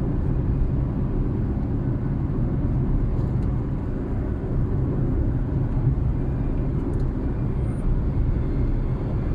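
Steady low rumble of a moving car, engine and tyre noise on the road.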